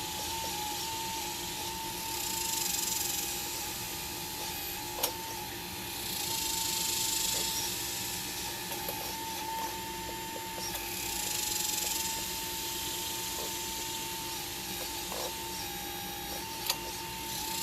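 RC scale hydraulic excavator (Liebherr 954 model) working: its hydraulic pump runs with a steady high whine, with swells of hiss three times as the machine moves, and two sharp clicks.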